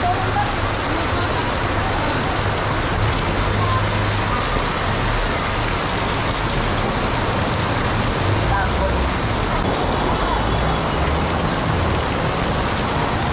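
Torrential rain pouring down on a street, a steady loud hiss of water hitting pavement and vehicles, with a low rumble underneath.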